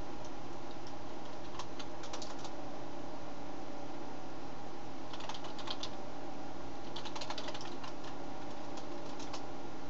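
Computer keyboard typing in about four short bursts of keystrokes with pauses between them, over a steady hum.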